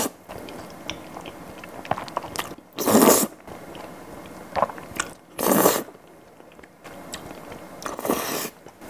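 Close-up slurping of cream pasta noodles: three loud slurps about two and a half seconds apart, each about half a second long, with quiet chewing and wet mouth clicks between them.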